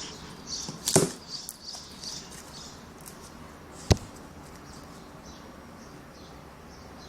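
Homemade slime being squeezed and stretched by hand: a string of soft squelches and small pops, with a sharp snap about a second in and another just before four seconds.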